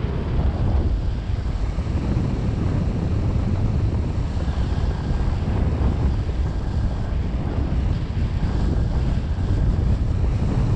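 Wind buffeting the microphone: a steady low rumble with a fainter hiss above it, and no engine to be heard.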